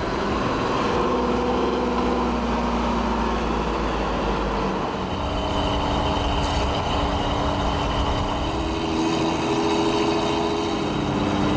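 Engine and road noise of a 4x4 motorhome truck driving, heard from inside the cab. The engine note changes about halfway through.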